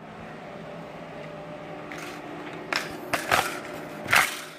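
Handling noise: a steady rustle with a few sharp clicks and knocks in the second half, the loudest near the end.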